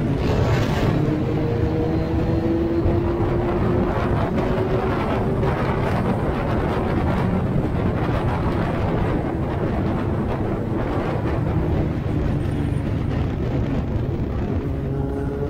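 Motorcycle engine running at road speed under heavy wind rush on the microphone, its note climbing slowly as it gathers speed, then again near the end.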